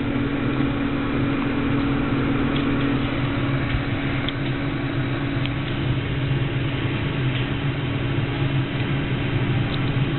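A steady machine hum with a low drone and a few faint clicks.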